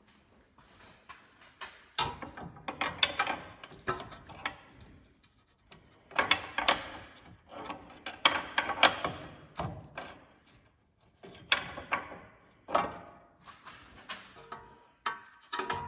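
Irregular metal clanks, knocks and scrapes as a pry bar works a new steel lower control arm around to line it up for fitting.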